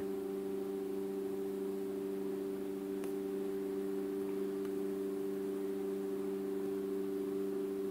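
Steady electrical hum made of several even tones, like mains hum, with a faint click about three seconds in.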